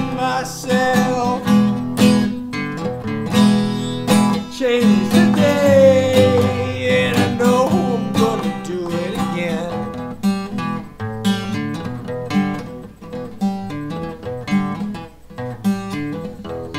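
Acoustic guitar strummed in a steady rhythm through an instrumental break between sung lines, the strumming growing softer in the second half.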